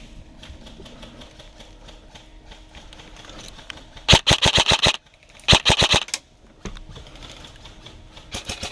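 Airsoft gun firing two short full-auto bursts of rapid sharp cracks, about nine shots a second, starting about four seconds in; the first lasts about a second and the second is shorter. A fainter burst follows near the end.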